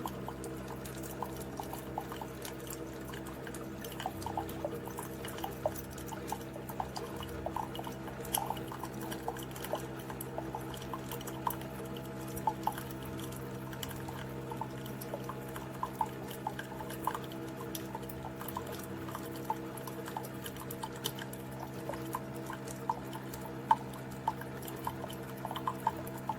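Cuisinart single-serve pod coffee maker brewing: a steady pump hum, with coffee trickling and dripping into the cup in irregular little ticks. This machine takes about twice as long to brew as a Keurig.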